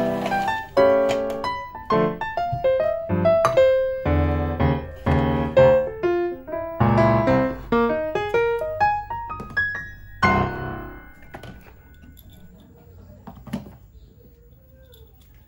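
Gentle background piano music: a slow melody over chords, dying away about two thirds of the way through and leaving only a faint tail.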